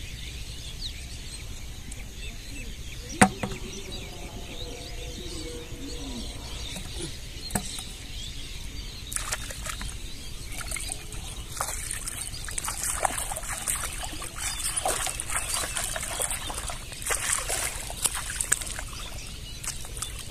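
Shallow water splashing and sloshing as a person wades and handles things in a plastic bucket standing in the water; the splashing grows busier from about nine seconds in. A single sharp knock about three seconds in.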